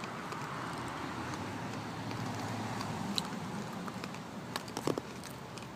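Steady low rumble of road traffic, with a few short crunches and clicks about four to five seconds in from hard sour candy being chewed.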